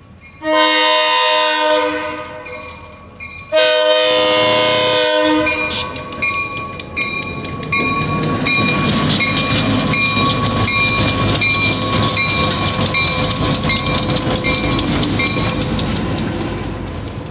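Diesel freight locomotive horn sounding two long blasts. Then the locomotives and the loaded scrap-steel gondola cars roll past, their wheels clicking steadily over the rail joints, while a grade-crossing bell rings in a steady repeating pattern.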